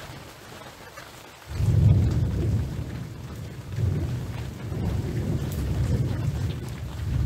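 Rain falling, then a roll of thunder that breaks in suddenly about a second and a half in and rumbles on in low swells over the steady hiss of the rain.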